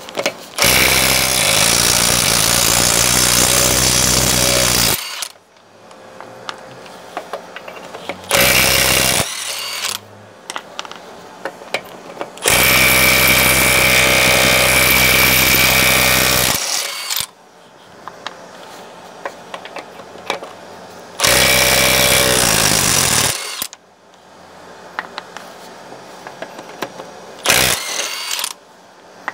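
Milwaukee M12 FUEL CIW12 brushless half-inch impact wrench on full power, hammering car wheel nuts loose in five bursts: two of about four seconds, one of about two seconds and two short ones, the last a brief blip. Between bursts there are quieter clicks and rattles.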